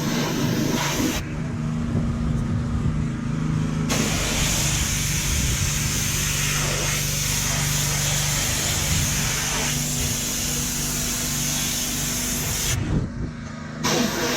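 Pressure washer spraying, its motor running steadily underneath with a constant hum. The spray's hiss stops about a second in for nearly three seconds, then runs on until a short break near the end before starting again.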